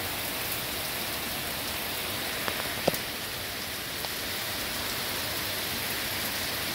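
Heavy rain pouring down in a steady hiss, with a few sharp ticks, the loudest about three seconds in.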